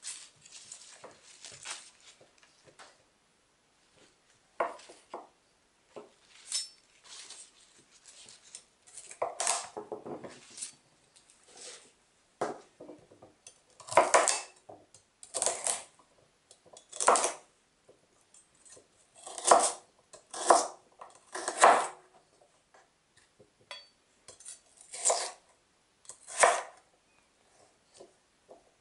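Chef's knife cutting fresh celery on a wooden chopping board: each cut a crisp crunch ending in a knock of the blade on the board, single strokes at uneven intervals of roughly a second. The strokes are fainter at first while the leafy tops are handled and cut, and louder in the second half as the stalks are chopped.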